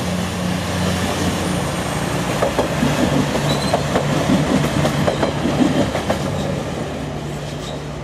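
A DB Regio Siemens Desiro two-car diesel railcar passes with its engines droning steadily. Its wheels clatter over the rail joints in the middle, and the sound fades near the end as it moves away.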